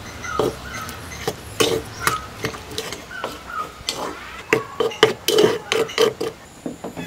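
Metal spoon stirring and scraping a wet chicken-and-spice mixture in an unglazed clay bowl, with quick clinks and knocks against the bowl that come faster and louder in the second half.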